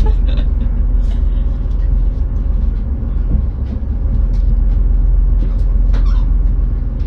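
Passenger train running, heard from inside the carriage: a steady low rumble, with a few light clicks.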